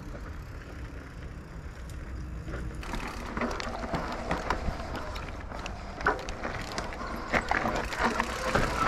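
Mountain bike riding over rough, rocky dirt: a low rumble at first, then from about three seconds in a steady crunch of tyres with many sharp knocks and rattles from the bike.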